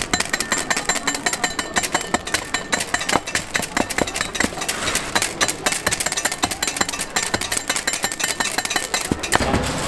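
Steel cleaver chopping hard-candy rods on a stainless-steel table: rapid, even sharp knocks, several a second, as the blade cuts through the brittle candy and strikes the metal, with the cut pieces clattering down.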